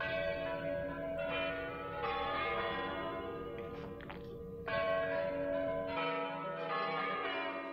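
Bells chiming: several struck, sustained bell tones that ring on and overlap, with a fresh strike every second or two.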